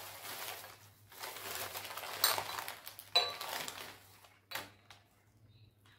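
Glassware being handled: rustling handling noise with two sharp glass clinks that ring briefly, about two and three seconds in, then a couple of lighter taps.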